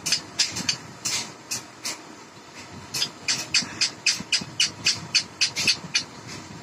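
A pet green parakeet flapping its wings hard while perched in its cage: quick rhythmic whooshes, about four or five a second, in two bouts with a short pause about two seconds in.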